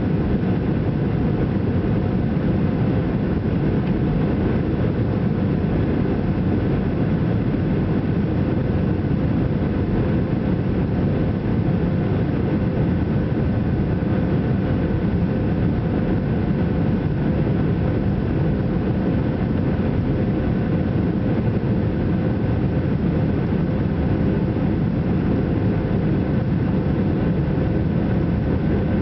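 Steady cabin noise of a Boeing 737-800 climbing after takeoff, heard from inside the cabin over the wing: its CFM56 turbofan engines at climb power and the rush of air past the fuselage, a deep even roar with faint steady tones running through it.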